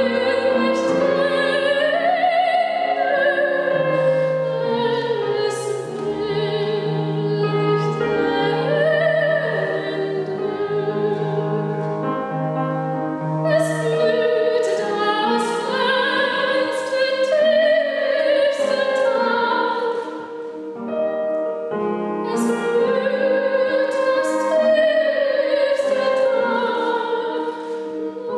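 A soprano singing an operatic piece in full classical voice with wide vibrato, over piano accompaniment. Her line breaks off briefly about twenty seconds in, then resumes.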